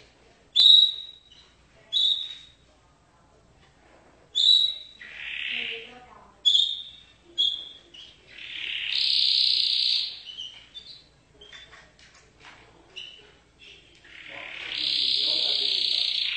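Canary singing: short high chirps with pauses between them, a longer sustained trill about nine seconds in, and another long trill starting near the end.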